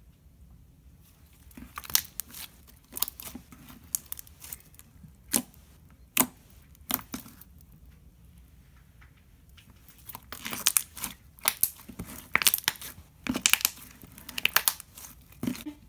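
Clicky pink slime being stretched, folded and pressed by hand, giving sticky clicks and pops. The clicks come singly at first and thick and fast in the last third.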